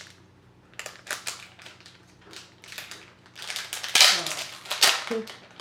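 Craft-kit pieces being handled: a run of light clicks, taps and crinkles, a few about a second in, then busier and louder in the second half.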